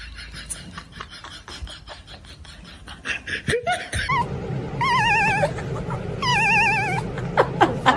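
A moving escalator's steps running with a faint, rapid clatter. Then, about four seconds in, a much louder high-pitched wail with a fast, even warble comes twice in long notes.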